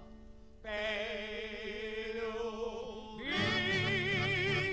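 Old Bulgarian urban song by a male vocal group with accordion and guitar: a voice holds one long note with vibrato, then about three seconds in the accordion and guitar come in with a bouncing beat under several voices singing together.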